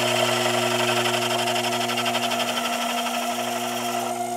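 Sherline mini lathe running, its motor and spindle giving a steady whine with a fast, even pulsing above it, as the cutter takes a light taper pass on the spinning metal workpiece. The higher noise drops away about four seconds in.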